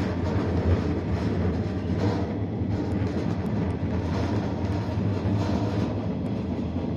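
Steady running noise of a 113 series electric train travelling along the line, heard inside the driver's cab: a continuous low hum with the rumble of wheels on the rails.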